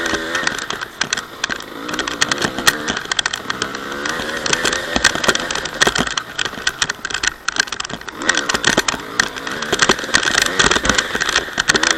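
Honda CR250 single-cylinder two-stroke dirt bike engine running, its pitch rising and falling again and again with the throttle, amid a lot of rattling and knocking.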